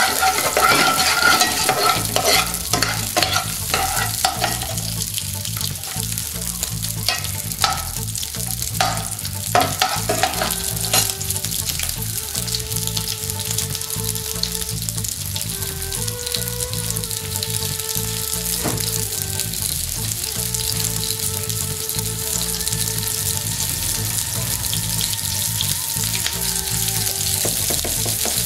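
Onion pieces sizzling in oil in a stainless steel frying pan as they soften. For the first ten seconds or so, a metal chef's spoon stirs them, scraping and clinking against the pan. After that the frying hiss goes on steadily, with a low hum underneath.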